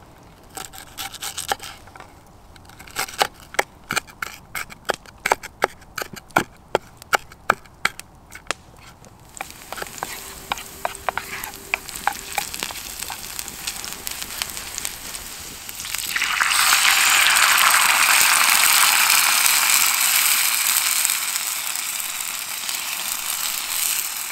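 Knife chopping onion on a wooden plate: a quick, irregular run of sharp taps. Then diced onion sizzling softly in a carbon-steel frying pan, stirred with a wooden spoon. About two-thirds through, a loud sizzle starts suddenly as tomato sauce goes into the hot pan, and slowly eases.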